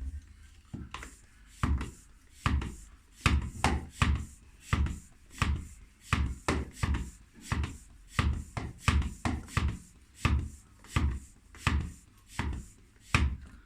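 Bicycle hand pump inflating a rear tyre filled with Slime sealant: a quick, uneven series of pump strokes, about two to three a second, each a short whoosh of air with a low thump.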